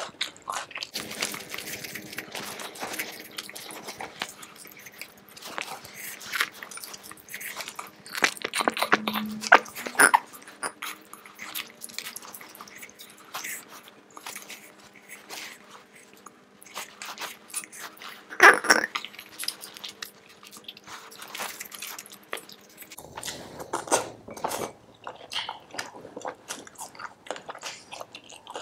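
A person eating chicken curry and rice by hand: irregular chewing and biting with crunching bites, the loudest crunch about eighteen seconds in.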